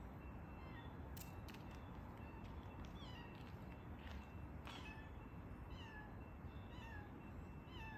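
Persian kitten mewing faintly, a run of short, thin, high-pitched mews about once or twice a second, starting a few seconds in.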